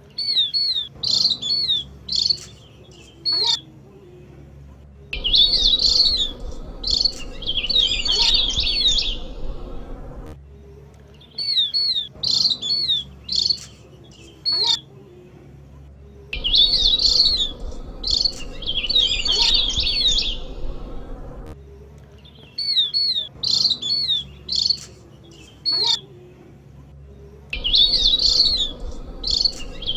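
Javan grey-throated white-eye (opior jawa) song, used as a lure: clusters of quick, sharp, high chirping notes that come in bursts about every five to six seconds, shorter and longer bursts alternating.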